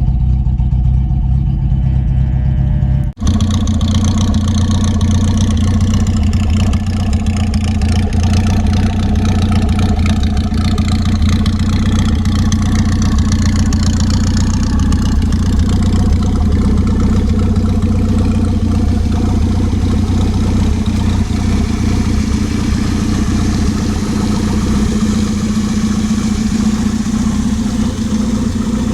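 1982 Datsun wagon's carbureted four-cylinder engine running steadily. For the first three seconds it idles with a low, even note. After an abrupt cut it keeps running with a broader hiss over the engine note. It is now idling properly after the repair.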